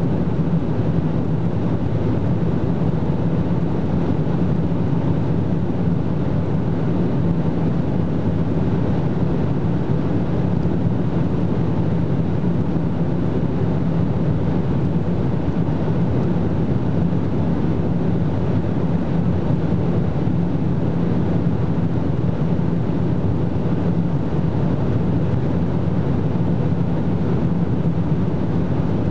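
Interior noise of an Opel Insignia OPC at near top speed, about 265–270 km/h: its 2.8-litre turbocharged V6 pulling under load together with wind and tyre roar, an even, unbroken rumble with a steady low hum.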